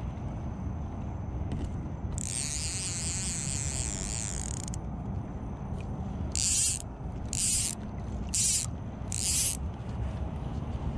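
Orvis fly reel buzzing as line is pulled off it by hand: one long pull lasting about two and a half seconds, then four short pulls about a second apart.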